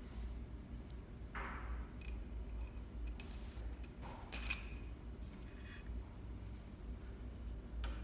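Scattered light clicks and taps with a brief rustle, from hands working thread through the metal thread guides of a Juki MO-6700DA five-thread serger; the sharpest click comes about four and a half seconds in.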